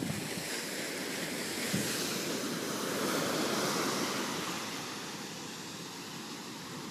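Ocean surf breaking and washing up a sandy beach: a steady rush of water that swells about halfway through and eases toward the end.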